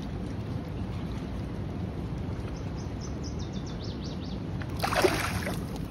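River water rushing steadily around an angler's hands and legs, with light splashing as an Atlantic salmon is held in the current for release, and one louder splash about five seconds in.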